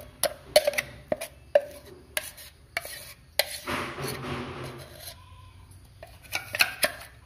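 Thick rice-flour batter being scraped out of a steel mixer-grinder jar into a steel pot. Sharp metal knocks come about every half second, a stretch of scraping follows about four seconds in, and a few more knocks come near the end.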